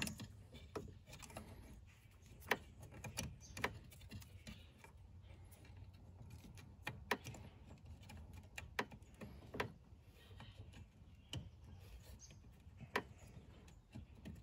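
Faint, irregular small plastic clicks and rattles as an electrical connector is worked and pushed together: the Windbooster electronic throttle controller's plug being fitted to the accelerator pedal wiring.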